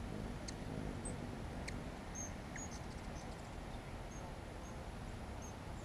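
Hummingbird hovering at a feeder: a steady low buzz of wings, likened to a bumblebee swarm, with several short, high chip notes scattered through.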